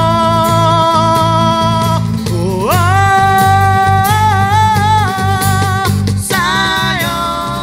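Live pop-rock song by a small band. A male lead vocalist holds long sung notes, sliding up into a higher held note about two and a half seconds in, then shorter phrases near the end. Under the voice play strummed acoustic guitars, an electric bass and a cajon.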